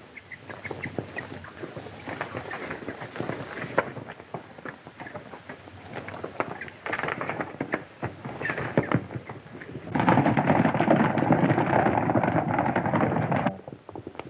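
Horse hooves on hard dirt: scattered clops and knocks at first, then from about ten seconds in a louder, dense run of galloping hoofbeats that cuts off abruptly near the end.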